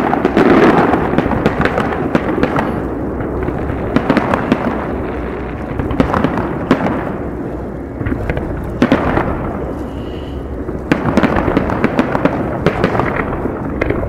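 Aerial firework shells bursting in quick succession: many sharp bangs over a continuous rumble, with a denser run of bangs about eleven seconds in.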